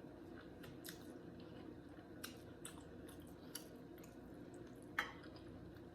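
Faint mouth sounds of a person chewing seafood gumbo, with a handful of small sharp clicks, the clearest about five seconds in.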